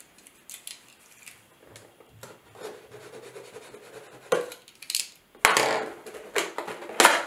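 A utility knife slitting the seal sticker on a small cardboard CPU box, with faint clicks and scratching, then louder cardboard scrapes and rustles as the box is handled and opened, the loudest about five and a half and seven seconds in.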